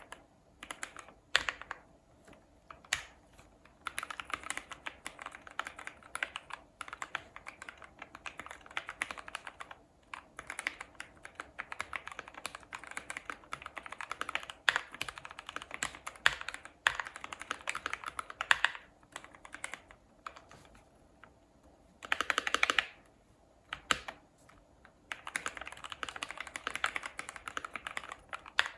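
Typing on a finished GMMK PRO mechanical keyboard with lubed and filmed Gateron KS-3 Yellow linear switches, tape-modded and with PE foam: runs of keystrokes broken by short pauses, with a fast flurry of keys about 22 seconds in.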